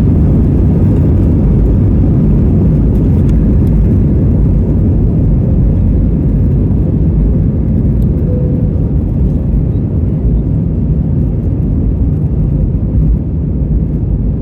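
Airliner cabin noise: a steady low rumble of the engines and airflow heard from inside the cabin, with no sudden changes.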